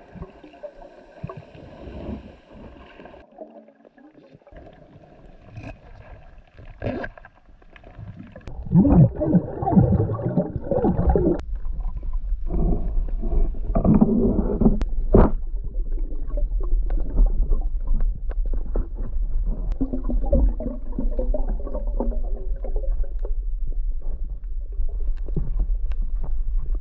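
Underwater noise picked up by a diver's camera: water churning and bubbling around the housing, growing much louder about a third of the way in, with a steady low hum underneath from about halfway.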